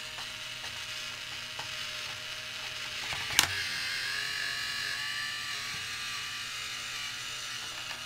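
Small battery-powered toy drill motor from a kids' construction-truck kit whirring steadily in reverse as its Phillips bit backs out a plastic wheel screw, with a single sharp click about three and a half seconds in.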